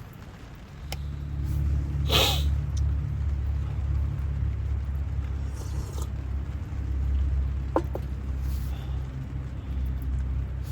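A low, steady engine rumble starts about a second in and runs on, with a few light clicks and a brief rustle on top.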